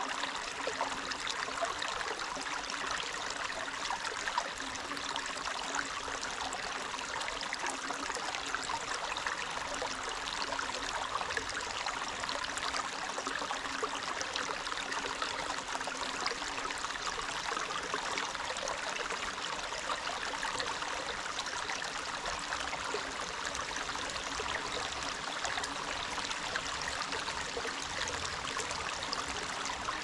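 Forest stream flowing, a steady, even rush of running water with no pauses or sudden sounds.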